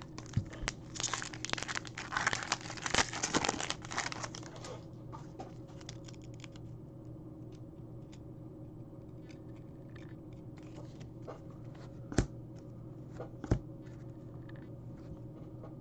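A trading-card pack wrapper being torn open and crinkled for a few seconds, followed by the soft flicks and ticks of cards being slid and flipped through by hand.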